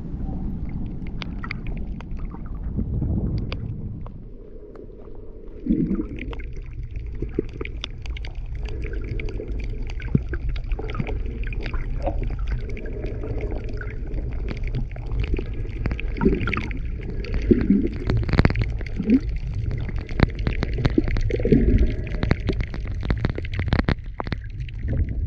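Underwater sound picked up by a camera in shallow sea water: a steady low rumble with many scattered clicks and crackles, and now and then a short gurgle. For the first few seconds the camera is at the surface, and the sound changes as it goes under about four to five seconds in.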